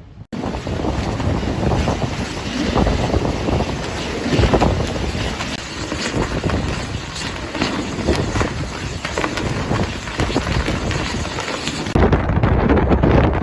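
Strong wind buffeting a microphone, an uneven gusting rumble and hiss. The sound changes abruptly just after the start and again near the end, as if cut between shots.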